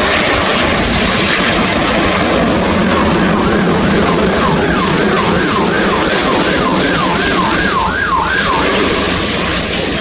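Cathay Pacific Airbus A350-900 on landing approach passing low overhead, its Rolls-Royce Trent XWB engines giving a loud, steady jet roar. Over the roar, a tone sweeps up and down about twice a second from a few seconds in until near the end.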